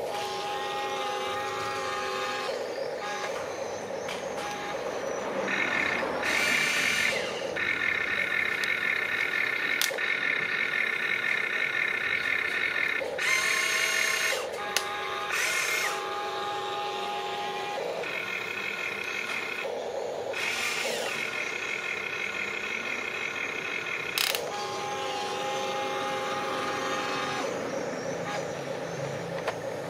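Remote-controlled model excavator's electric motors and hydraulic pump whining as it digs, the whine shifting to new pitches every few seconds, with several short, louder, rougher spells.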